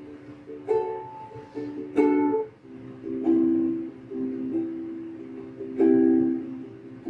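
Ukulele playing slow chords, struck roughly once a second and left ringing.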